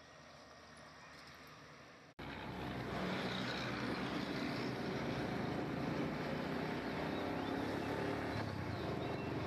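Faint outdoor background. Then, about two seconds in, the sound cuts sharply to a bus engine running close by: a steady low drone with a hum that swells over the first second and then holds.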